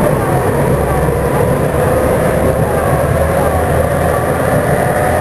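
Tokyu 2000 series electric train running, heard from on board: a steady rumble of wheels on rail with the gliding whine of its VVVF inverter traction motors.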